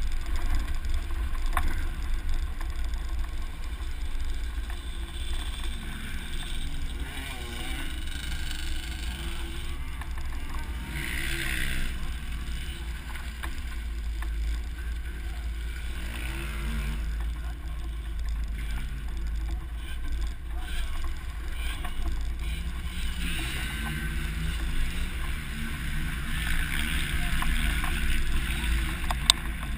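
Off-road 4x4 driving along a dirt trail, heard from a camera mounted on the outside of the vehicle: the engine runs with revs rising and falling under a heavy, steady wind rumble on the microphone. A sharp click near the end.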